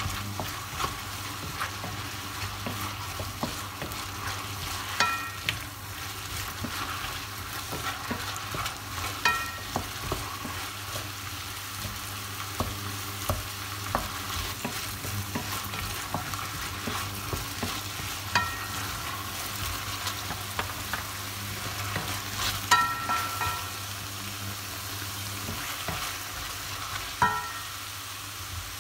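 Celery, pineapple and mushrooms sizzling in a stainless steel frying pan while a wooden spatula stirs and scrapes them. Several times the spatula knocks against the pan, making it ring briefly.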